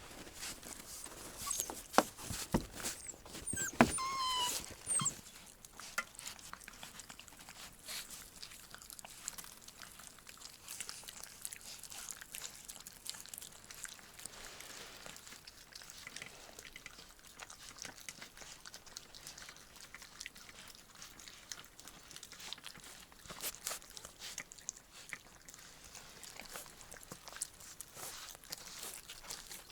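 Little puppy hiccuping: a few sharp little hics in the first few seconds, with a short high whine about four seconds in. After that only faint, scattered ticks.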